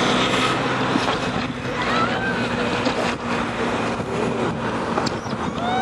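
Jet ski engine running steadily with a constant low hum.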